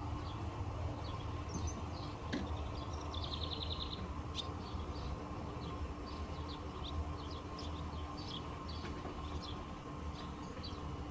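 Small songbirds chirping over and over in short high notes, with one fast buzzy trill about three seconds in, over a steady low rumble.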